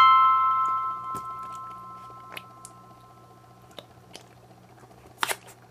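A last chord of background music rings out and fades over the first couple of seconds. Then come faint squishes and clicks as glitter slime is squeezed and pressed into a silicone ice pop mould, with a louder crackle about five seconds in.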